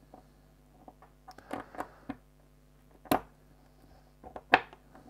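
Small metal parts of a bike-lock cylinder clicking and clacking as they are fitted together by hand: a quick cluster of light clicks, then two sharper clicks about three and four and a half seconds in.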